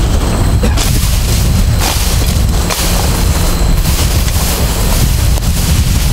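Wind buffeting the microphone as a loud, uneven low rumble, with brief rustles and snaps of leafy weeds being cut and pulled.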